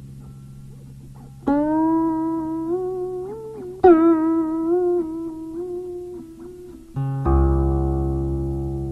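Guqin being played: single plucked notes that slide up in pitch as they ring, stepping higher along the string, about one and a half and four seconds in, then a deep, low note about seven seconds in.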